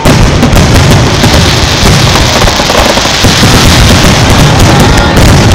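Aerial fireworks in a rapid barrage, many shells bursting together: a dense, unbroken, very loud run of booms and crackling with no gaps between the bursts.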